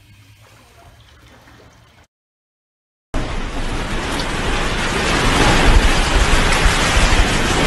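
Faint background at first, a second of dead silence, then a loud din of rattling and rumbling that keeps growing louder: steel warehouse racks and stock in a big-box store shaking in a strong earthquake.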